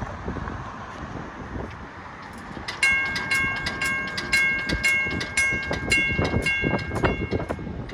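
Western-Cullen-Hayes 8-inch railroad crossing bell starts ringing about three seconds in, about two strikes a second, each strike ringing on.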